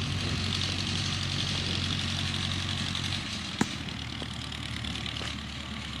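Tractor engine and the Jones straw baler it drives running steadily, a low drone with a higher mechanical hiss over it. The drone eases slightly about three seconds in, and a single sharp click follows shortly after.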